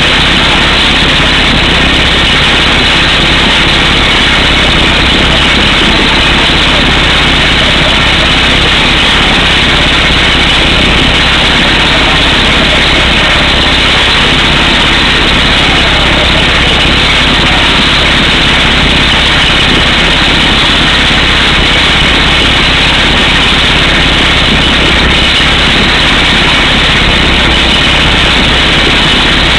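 Air hammer on a digger derrick truck drilling a power pole hole through solid rock, with the truck's engine running; a loud, steady, unbroken din.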